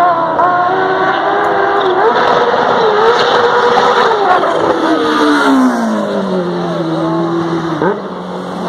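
Kawasaki H2's supercharged 998 cc inline-four engine running. Its pitch climbs and holds through the middle, then falls away over a few seconds as the revs drop. A quick rise and fall in revs comes near the end.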